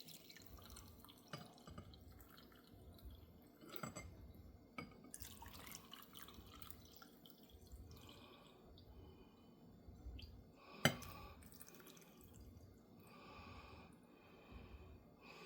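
Hot toddy being poured from a Pyrex jug into a glass: faint trickling and dripping with light clicks. One sharp clink comes about eleven seconds in.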